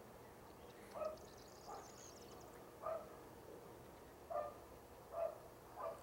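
A dog barking: about six short barks at uneven gaps, over a faint steady hum.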